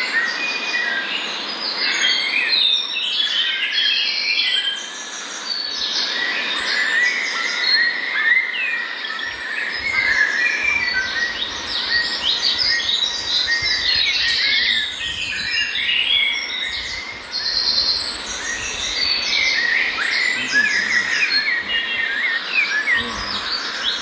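Several forest songbirds singing and chirping at once: a dense chorus of short, overlapping calls and quick whistled glides.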